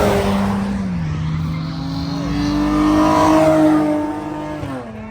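A car engine revving and pulling hard, its pitch dropping about a second in, then climbing slowly and falling away sharply near the end.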